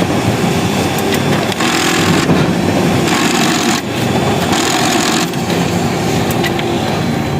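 Konica Minolta bizhub 283 copier's toner hopper running with a continuous grinding, rasping jamming sound, the noise of a faulty hopper that goes with error C2557.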